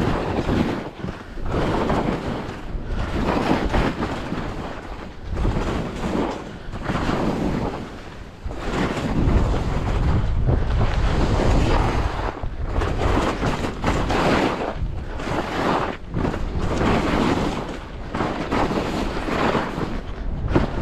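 Downhill skiing: wind rushing over the microphone together with the scrape and hiss of skis on hard, wind-packed snow. The rushing swells and fades every second or two as the turns link, with a steadier loud run through the middle.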